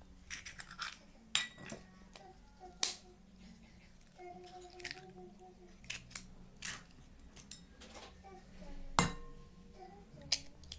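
Eggs being cracked against the rim of a bowl: a series of sharp taps and shell snaps at irregular intervals, the loudest about nine seconds in.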